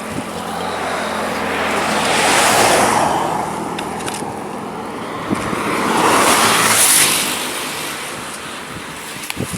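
Two vehicles passing by, one after the other. Each is a swell of tyre and engine noise that rises and fades, the first peaking about two and a half seconds in and the second near seven seconds.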